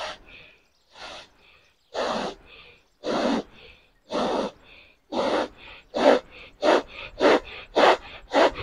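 Bhastrika (bellows breath) pranayama: forceful, audible breaths in and out through the nose, each strong stroke followed by a softer one. The breathing speeds up from about one breath a second to nearly two a second.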